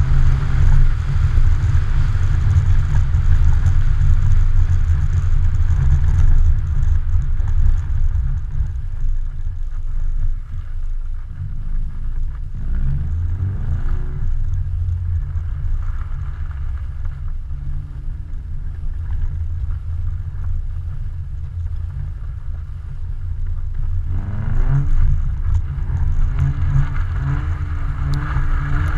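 A car engine revving up and easing off as the car is driven sideways across ice, with a heavy low rumble of wind buffeting an outside-mounted camera's microphone. The engine pitch climbs sharply twice, about twelve seconds in and again about twenty-four seconds in.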